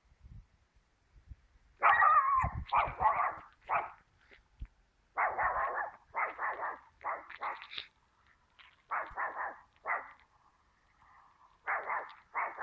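A dog barking repeatedly in short runs of sharp barks, with brief pauses between the runs.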